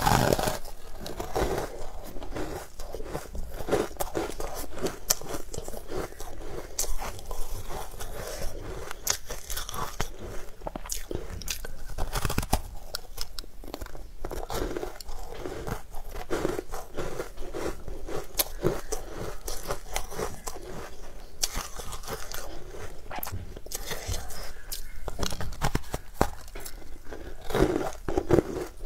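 Close crunching and chewing of a powder-coated block of frozen sweet ice, with irregular sharp crackles as it is bitten and ground between the teeth.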